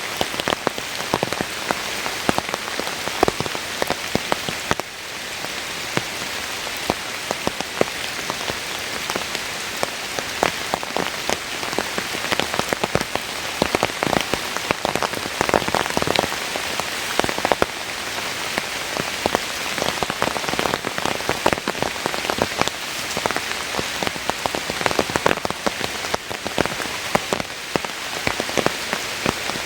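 Heavy rain falling steadily, a dense hiss dotted with many sharp individual drop hits.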